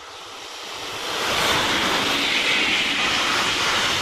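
Freight train passing close at speed behind an electric locomotive: a rushing noise that builds over the first second as the locomotive arrives, then a loud steady rush of wheels on rail as the covered steel-coil wagons go by.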